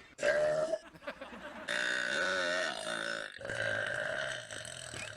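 A man belching: a short belch near the start, then two long, drawn-out belches back to back.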